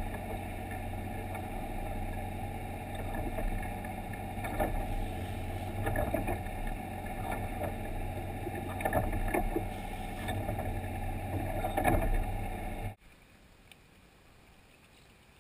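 Boat engine running steadily with a low, even drone, and a few brief knocks on top. It cuts off abruptly near the end, leaving only a faint hiss.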